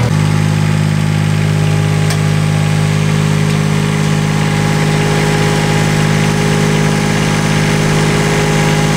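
An engine idling steadily, a low, even hum that holds without change.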